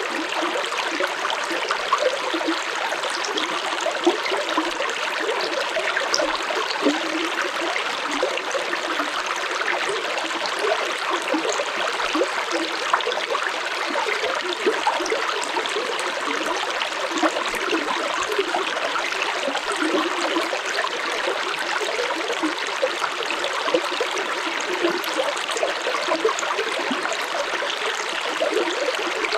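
Stream water flowing and splashing steadily over rocks, a constant bubbling rush with small splashes throughout.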